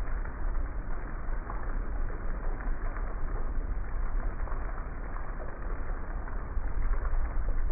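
Heavy rain falling steadily, an even wash of noise with a low rumble underneath.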